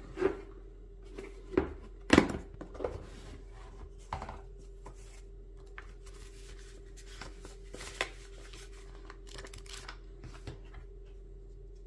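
Walther PP 9 mm gas pistol being handled: a series of sharp metallic clicks and clacks, the loudest about two seconds in, followed by lighter scattered ticks and rubbing. A steady hum runs underneath.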